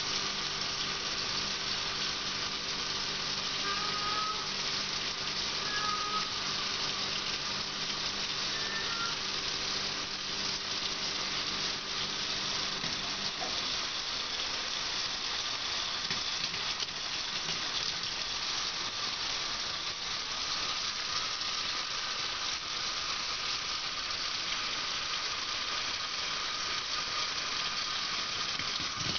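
Kitchen tap running steadily, a thin stream of water splashing into a stainless steel sink.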